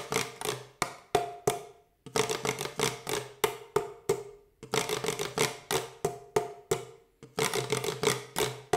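A plastic bottle played as a scraper with a wooden stick: short rasps scraped along its side alternate with sharp taps on the bottle, in a rhythm that repeats about every two and a half seconds.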